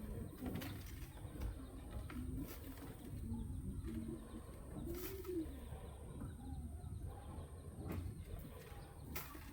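Low cooing bird calls, one after another, one rising and falling in a slow arch about five seconds in, with a few sharp clicks.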